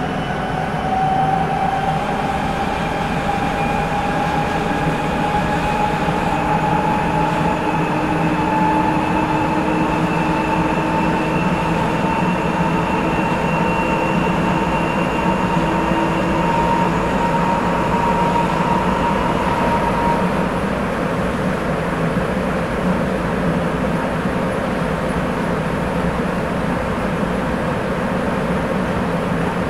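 Sapporo Municipal Subway Tozai Line 8000-series rubber-tyred train running through the tunnel, heard from inside the car: a steady rumble with a motor whine that rises slowly in pitch as the train gathers speed. The whine fades out about two-thirds of the way through, leaving the running rumble.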